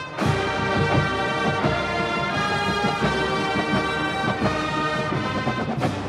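Marching band playing: brass sustaining loud full chords over drums beating a steady rhythm. The full band comes in with a sharp hit just after the start, and there is another hit near the end.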